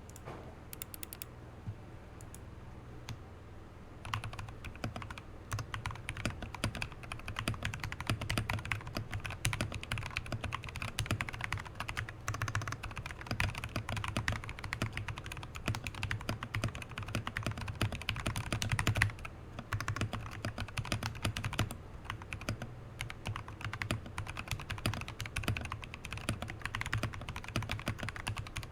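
Typing on an RK71 mechanical keyboard with lubed and filmed RK Brown tactile switches, lubed and filmed stabilizers, foam in the case and a two-layer tape mod. A few scattered keypresses at first, then steady fast typing from about four seconds in.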